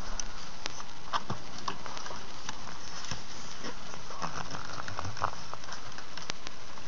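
Trading cards being handled and laid out on a table: light, irregular clicks and taps over a steady hiss.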